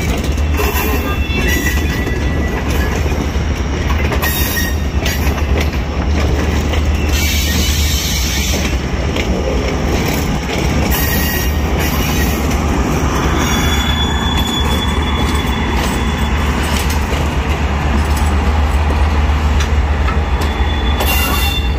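Passenger coaches rolling past on the track. Their wheels clatter over the rail joints, with a steady low rumble and a few brief thin squeals from the wheels.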